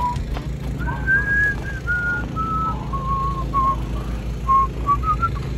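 A man whistling a wandering tune, held notes stepping up and down with a few short quick notes toward the end, over a steady low rumble.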